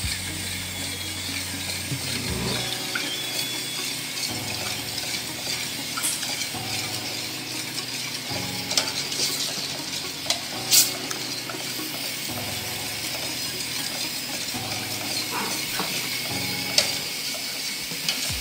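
A saucepan of coconut milk heating towards the boil on a gas burner with a steady hiss, stirred with a long metal spoon that clinks against the stainless steel pan a few times, loudest just past the middle.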